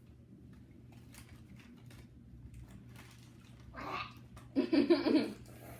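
Faint clicks over a low room hum, then a child laughing briefly in a high, wavering voice about four and a half seconds in.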